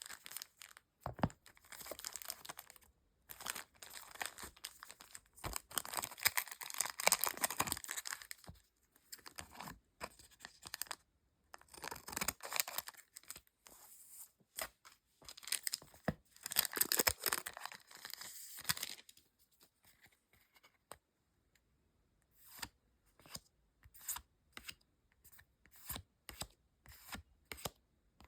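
Pokémon trading card booster pack foil wrappers being torn open and crinkled, in two long rustling bursts, followed by a run of short crisp clicks near the end.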